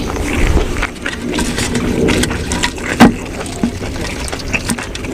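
Close-miked chewing and wet mouth sounds of someone eating buffalo-meat larb: irregular smacks and squelches, with one sharp, loud click about three seconds in.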